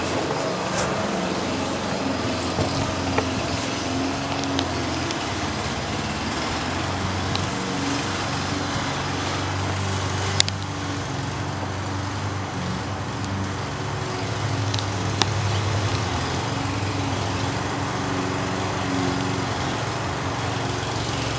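Steady low engine drone in the background, wavering slightly in pitch, with a few light clicks and one sharp click about ten seconds in.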